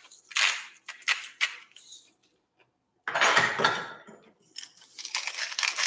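A hand-twisted salt grinder grinding pink salt over a bowl of slaw in several short gritty bursts, then a louder scraping burst about three seconds in, and a longer spell of steady grinding near the end.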